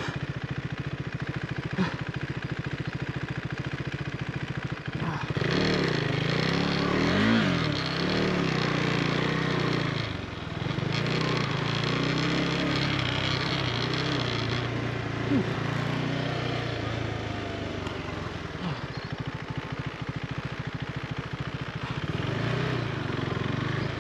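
KTM 390 Adventure's single-cylinder engine ticking over, then about five seconds in revving up as the bike rides off along a dirt track. The engine pitch rises and falls as it pulls, with a rushing noise of wind and tyres over the dirt. The rushing drops away after about fourteen seconds and the engine runs on more gently.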